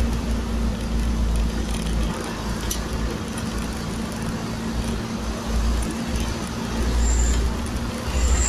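Engine and road noise heard from inside a vehicle driving along a highway: a steady drone with a constant low hum and a heavy rumble underneath.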